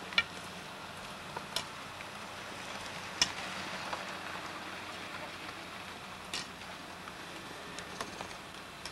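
Outdoor street background picked up by a camcorder microphone: a steady hiss with a few sharp clicks, the loudest near the start and about three seconds in.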